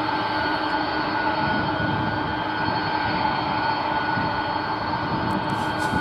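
Boeing 747's four jet engines running as the jet rolls along the runway: a steady engine noise with several steady whining tones on top.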